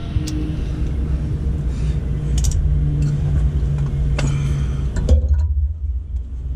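A steady low rumble with a few light metallic clinks as an adjustable wrench is handled and set onto a fitting in a bus engine bay.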